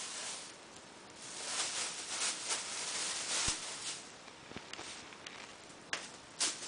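Thin plastic bag crinkling and rustling in uneven bursts as a kitten scrabbles about inside it, with a few sharp clicks.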